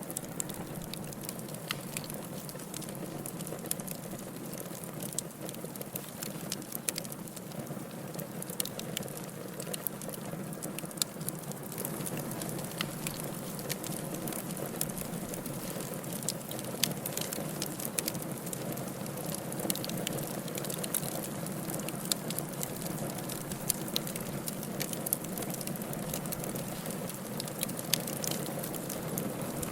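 Firewood burning in a fireplace: a steady low rush of flames with frequent sharp, irregular crackles and pops.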